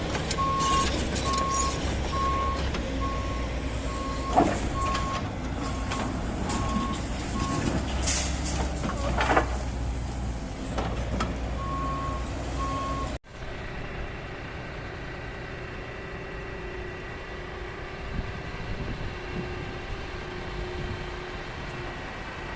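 A truck's reversing alarm beeping at an even pace, about one beep a second, over the rumble of its diesel engine, with two sharp noises in between. About two-thirds of the way through the sound cuts abruptly to a quieter, steady engine hum.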